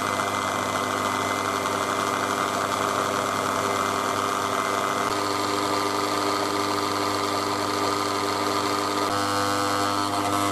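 Electric stand mixer running steadily, its twin beaters whipping flour into cake batter in a steel bowl. The motor's tone changes slightly about halfway through and again near the end.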